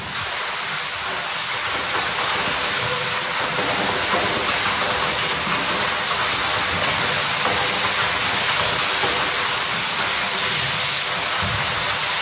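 Water splashing and churning in a plastic paddling pool as a gorilla spins and stomps through it, a continuous hissing wash of spray.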